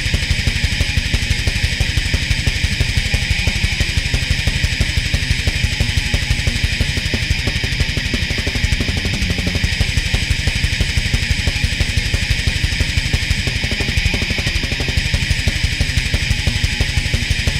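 Heavy metal instrumental: distorted electric guitar over fast, evenly driving drums.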